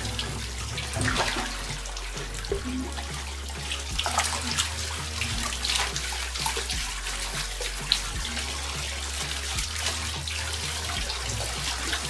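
Shower water running through a bunch of blue self-sealing water balloons as they fill over a bathtub, with a steady hiss and many small splashes and drips into the water.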